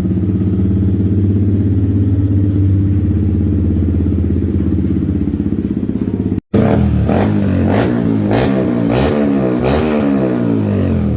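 Yamaha MT-15's single-cylinder four-stroke engine through an Akrapovic full-system exhaust, idling steadily. After a brief cut about six seconds in, the throttle is blipped about five times in quick succession, each rev rising and falling.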